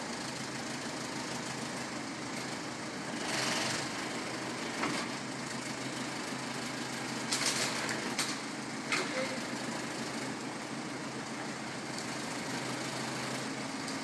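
Telehandler's diesel engine running steadily at idle, with a few short, louder noises over it, the loudest a cluster about seven to nine seconds in.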